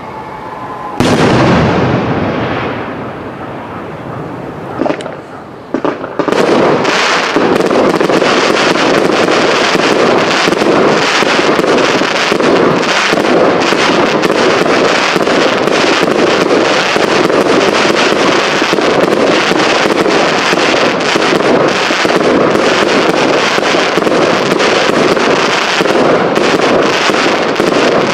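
Aerial fireworks: a loud shell burst about a second in and another sharp report near five seconds, then from about six seconds a dense, continuous crackling of many small rapid reports.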